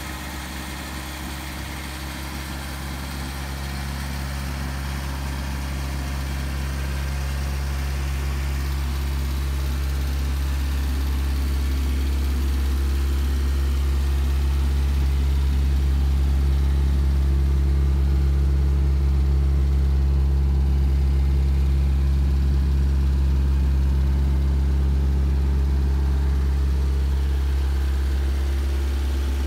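1959 Triumph TR3's 1991 cc straight-four engine idling steadily, gradually growing louder over the first half.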